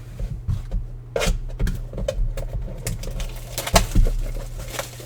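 Baseball trading cards being handled and sorted by hand: irregular soft taps, slaps and scrapes of cards against each other and the table, over a steady low hum.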